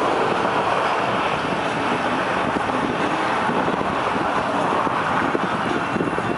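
Steady rushing noise of road traffic on the highway, even throughout.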